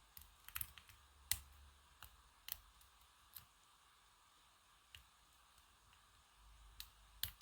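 Faint, scattered clicks of a lock pick working the pin stacks of a small five-pin aluminium padlock under tension, during single pin picking; a sharper click comes near the end.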